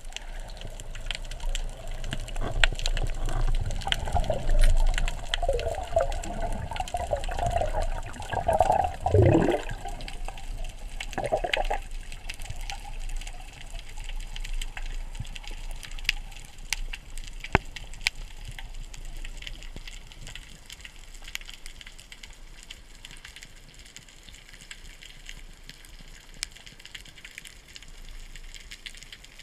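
Underwater sound of water moving and bubbles gurgling past the camera. The first dozen seconds are busier, with a wavering burble that drops sharply in pitch about nine seconds in. After that there is a quieter hiss with scattered faint clicks.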